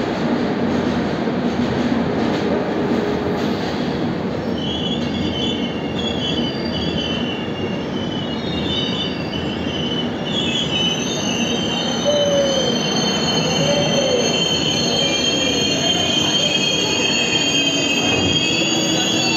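Passenger train coach rolling slowly along a platform as it brakes on arrival, with a steady rumble from the running gear. From about four or five seconds in, a high-pitched wheel squeal sets in and grows into several overlapping squealing tones.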